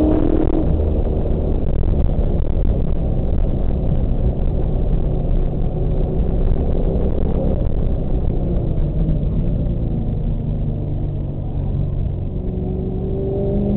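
A car's engine heard from inside the cabin while lapping a race track, with road and wind noise throughout. The engine note falls off as the car slows for a corner, then rises again as it accelerates out near the end.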